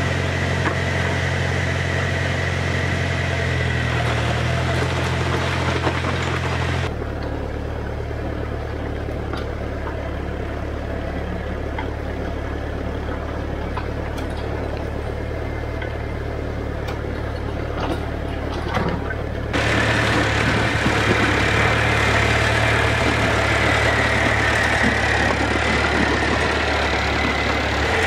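International B414 tractor's diesel engine running steadily, running on used cooking oil instead of diesel, while pulling a rear blade that scrapes along a gravel track. The engine sound drops abruptly about seven seconds in and comes back louder near twenty seconds in.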